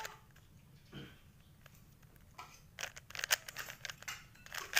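Plastic Rubik's cube being turned by hand: quick rattling clicks of the layers snapping round, in short runs, mostly in the second half.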